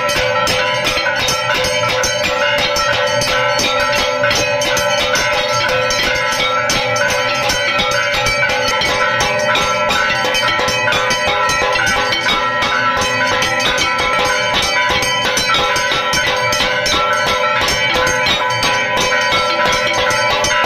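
Temple bells rung continuously and rapidly during a Hindu aarti, a dense clanging with steady ringing tones that never lets up.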